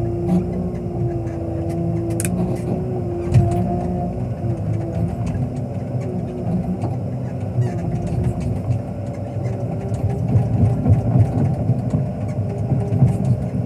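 Wheel loader's diesel engine running steadily: a low rumble with a steady hum over it.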